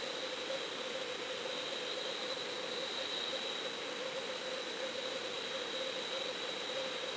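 Steady underwater hiss with an even hum and a fainter high whine running through it, as picked up by a GoFish Cam underwater fishing camera in its sealed housing.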